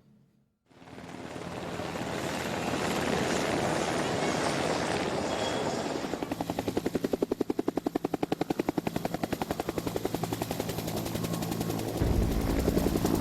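Helicopter passing, its rotor noise swelling in after a moment of silence. In the middle it turns into a fast, even rotor chop that then eases. Low music comes in near the end.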